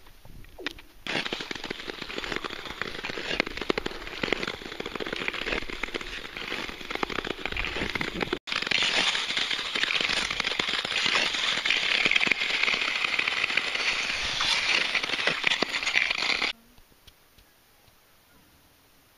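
Nordic touring skate blades gliding and scraping over frost-covered lake ice, a dense steady crackling scrape that turns hissier after a break about eight seconds in. It cuts off abruptly near the end.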